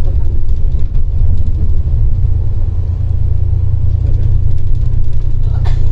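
Steady low rumble of a moving bus, engine and road noise heard from inside the cabin, with a brief click near the end.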